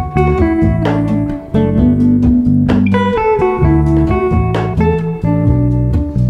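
Background music led by a plucked guitar.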